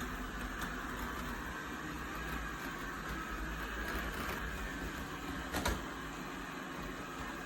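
eufy RoboVac 11S Max robot vacuum running with a steady whirring hum, with one short knock about five and a half seconds in.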